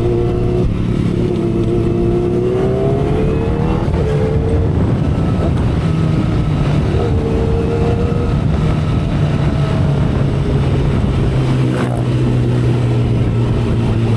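2012 Kawasaki Ninja ZX-10R's 1000cc inline-four engine and exhaust under way at speed, heard over wind and road noise. The revs climb over the first few seconds, drop about four seconds in, then hold fairly steady.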